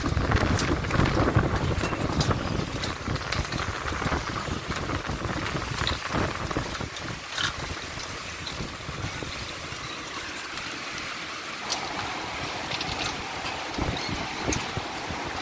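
Steady rush of a swollen, muddy river below a suspension bridge, mixed with wind on the microphone and scattered light clicks. It is loudest in the first few seconds and eases off in the middle.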